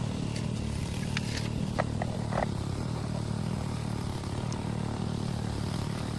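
Small engine running steadily with a low, even rumble, with a few light knocks and clicks about one to two and a half seconds in.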